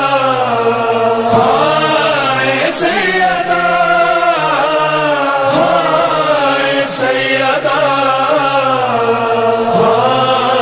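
A voice sings a slow, wordless, drawn-out melody over a steady low drone: the opening of an Urdu noha, a Shia mourning lament.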